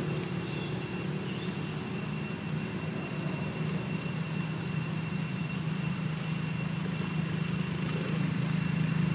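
A steady low mechanical drone, with faint steady high-pitched tones above it, growing slightly louder near the end.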